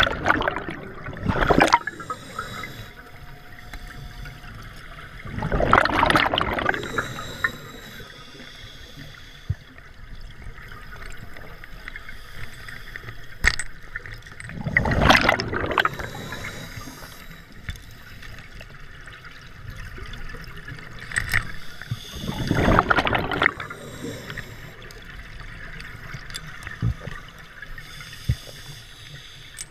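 Scuba diver's regulator exhaling: bursts of bubbles rush past, one at the start and then about every eight seconds, with a few sharp clicks in between.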